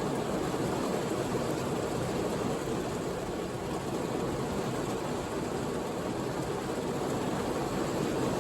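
Heavy rain falling on a parked car, heard from inside the cabin as a steady, even rush with no thunderclap.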